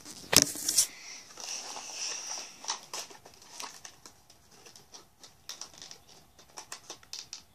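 Plastic toy packaging crinkling and rustling as it is handled close to the microphone, starting with a loud crackle and followed by many small, irregular clicks of little plastic pieces being moved about.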